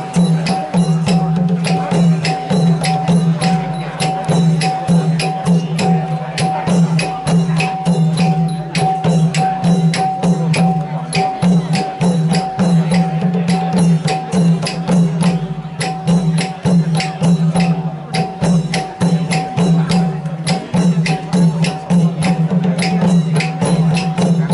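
Live northern Thai folk percussion: drums and sharp metallic strikes keep a fast, even beat, over a steady droning tone.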